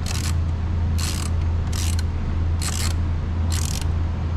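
Ratchet wrench clicking in five short strokes, about one a second, as small bolts on a motorcycle's plastic radiator shroud are run down, over a steady low hum.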